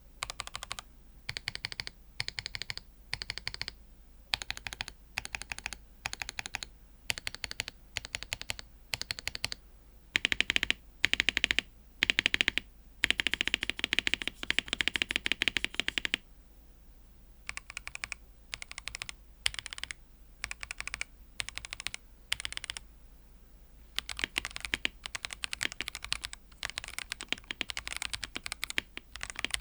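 Typing on a Noir Timeless82 mechanical keyboard with TMT Taho PBT keycaps and Afflion Ink switches. Keystrokes come in short runs with brief pauses, with a faster, denser stretch of typing in the middle.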